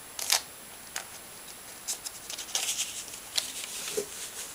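Two fanned packets of playing cards clashed together, then closed and squared: a scattered string of short, crisp papery clicks and swishes, busiest in the middle.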